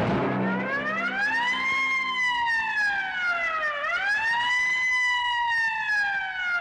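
A single wailing, siren-like tone that rises over about two seconds and sinks slowly. About four seconds in it swoops up again, then sinks slowly once more.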